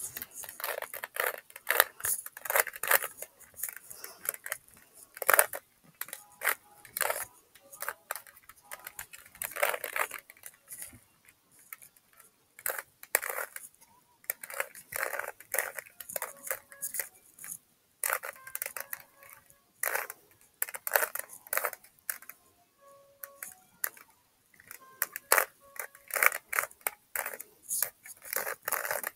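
Rubik's Cube being turned fast in the hands during a timed solve: rapid, irregular clattering clicks of the plastic layers snapping round, in quick bursts with short pauses between.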